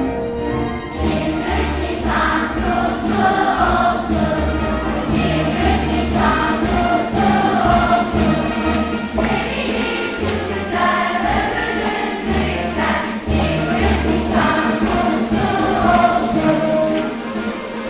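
Children's choir singing a melody together over orchestral accompaniment with a strong bass line.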